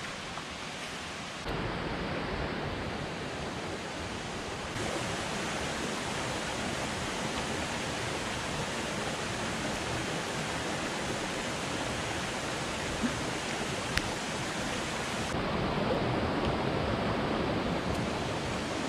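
Steady rush of water flowing over the rocks of a shallow stream. Its level jumps abruptly a few times, and two brief clicks come a second apart past the middle.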